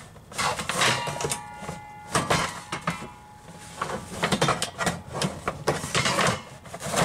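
Propane tank cover knocking and scraping against the steel tubes of a bike rack as it is lifted off and worked past them, in a run of irregular clunks and scrapes. Twice, about a second in and again at the end, a knock sets the metal tubing ringing.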